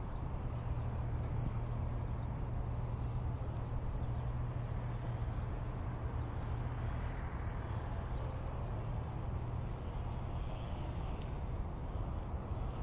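Steady low rumble of background noise, with faint wavering tones about eight seconds in.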